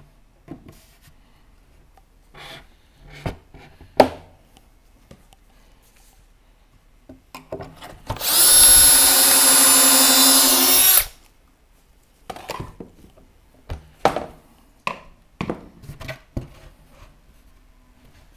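Power drill boring a pocket hole through a Kreg pocket-hole jig into plywood, running steadily for about three seconds near the middle. Scattered knocks and clicks of the jig and workpiece being handled come before and after it.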